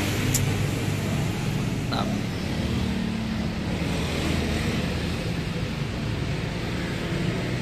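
Steady low rumble of workshop background noise, with two light clicks about half a second and two seconds in from hands handling engine parts.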